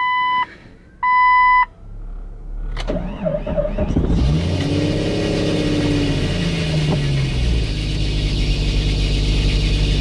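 Two short electronic warning chimes, then the Jeep's engine is started about three seconds in, revs up and back down, and settles into running loudly with a high screeching noise, which the driver doesn't think is normal.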